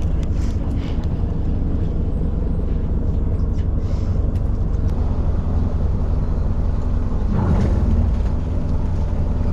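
Fishing boat's engine running steadily, a low rumble with a steady hum.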